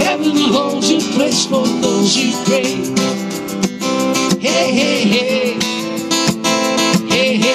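Live acoustic band: acoustic guitars strumming while a man sings into the microphone, with a tambourine jingling along.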